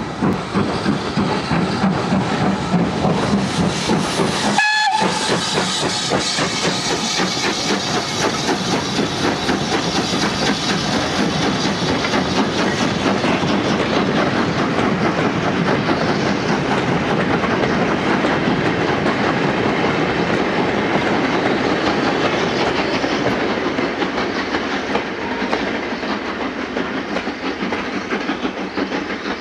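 Steam locomotive working hard as it hauls a goods train away, with a steady rapid chuff of exhaust and hissing steam. The wagons clatter over the rail joints, and the sound eases slightly near the end as the train draws off.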